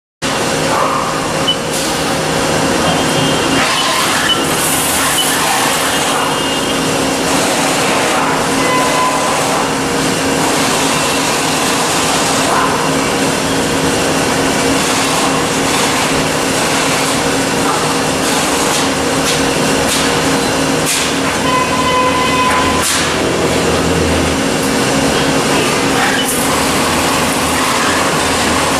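A 2008 Haas SL-20 CNC lathe running, its spindle turning a part held in the chuck while the turret tooling works it. A steady mechanical hum and whir with a few steady tones, broken by occasional short clicks and knocks.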